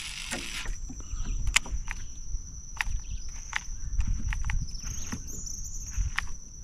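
A spinning rod casting a surface stick lure: a short whoosh of line at the start, then scattered sharp clicks and taps as the lure is reeled and twitched back. A steady high-pitched drone runs underneath.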